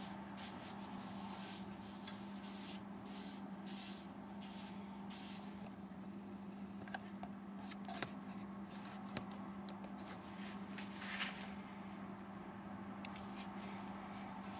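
Wood lathe running with a steady low hum while a rag held in a gloved hand rubs finish onto the spinning madrone-and-walnut bowl, a rough swishing that stops about halfway through. A few light clicks follow.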